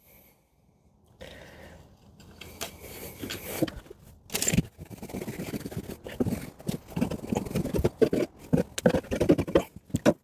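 Rockwool mineral wool insulation batt being cut by hand: a run of short, rough scraping strokes that starts about a second in and grows quicker toward the end.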